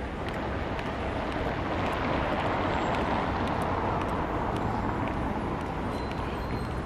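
Street traffic noise: a passing vehicle, swelling to a peak about three seconds in and then easing off.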